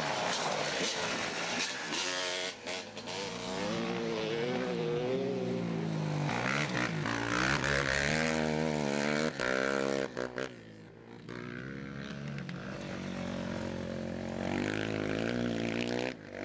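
Off-road motorbike and quad engines revving as they ride along a gravel track, the pitch rising and falling over and over, dropping away briefly a couple of times.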